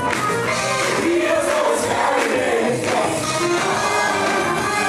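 Live gospel music: a vocal group singing together over a band of drums, bass and guitars.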